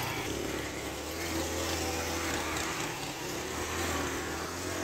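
Small motorcycle engine running steadily as the bike pulls away along a muddy track.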